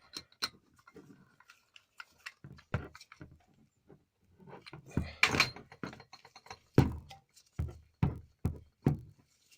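Metal parts of a garden sprinkler knocking, clicking and scraping as a spring-loaded fitting is pushed back into the sprinkler body against its spring: a string of short, irregular thunks.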